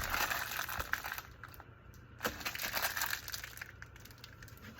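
Plastic packaging crinkling and rustling as a bag of parts is handled and opened, with small clicks. It comes in two bursts: one at the start and another about two seconds in.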